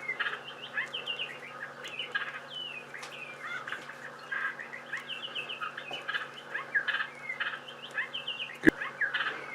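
Birds chirping over and over, short quick notes, over a steady low hum, with one sharp click near the end.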